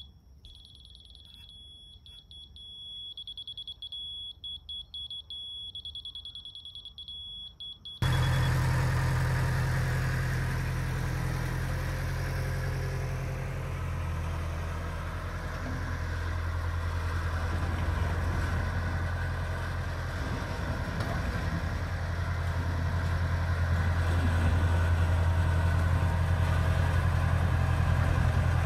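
A John Deere 450 crawler dozer's diesel engine running steadily, starting abruptly about eight seconds in and getting a little louder near the end. Before it there is a quiet, steady high-pitched tone broken by short gaps.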